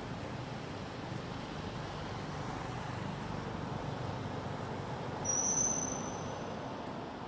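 Steady outdoor background noise like distant traffic, with a single high, thin whistled note lasting under a second about five seconds in.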